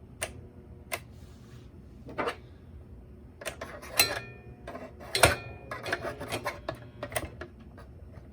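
Irregular clicks, knocks and rubbing from a 1997 Duracraft fan-forced space heater being handled and tried again while its motor will not spin the blade. The clicks are sparse at first and come thick and fast from about three and a half seconds in.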